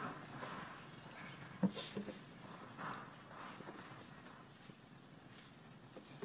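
Insects trilling steadily at a high pitch, with a few soft rustles and a couple of short knocks about a second and a half to two seconds in.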